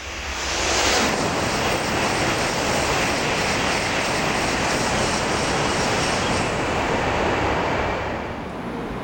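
N700-series Shinkansen passing at high speed: a loud rush of air and rolling noise that swells suddenly within the first second, holds steady for about seven seconds, then eases off near the end.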